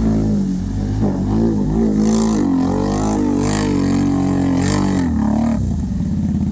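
Can-Am side-by-side engine revving up and down in repeated throttle blips, then dropping to a steady idle about five and a half seconds in.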